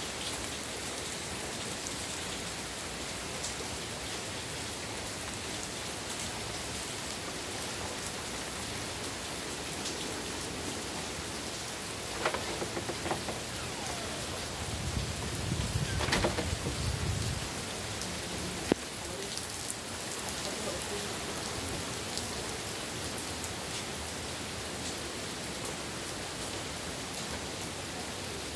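Heavy rain falling steadily on a street and pavement, an even hiss, with a brief louder low rumble about halfway through.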